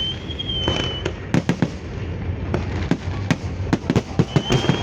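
Fireworks salute: aerial shells bursting in a rapid, irregular string of sharp bangs, several a second, over a low continuous rumble. A thin high steady whistle sounds for about a second at the start and comes in again near the end.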